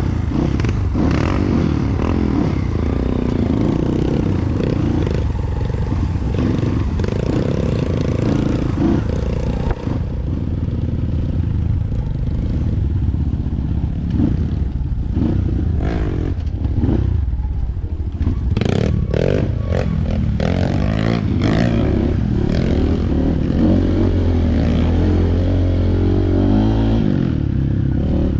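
Trail motorcycle engine running at changing revs, rising and falling, with clattering knocks as the bike rattles over rough ground. It settles to a steadier low note near the end.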